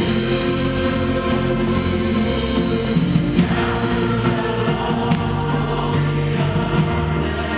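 A church choir singing sustained notes, with long held low tones beneath.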